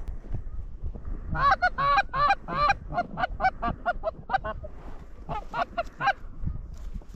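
Goose honks: a rapid run of a dozen or so short, clipped honks starting about a second in, then a brief pause and a few more near the end.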